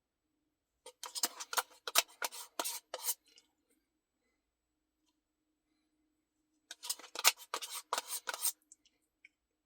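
Close-up eating sounds from an ice cream Blizzard: two runs of quick, crisp crunches and clicks, each lasting about two seconds, with a pause of a few seconds between them.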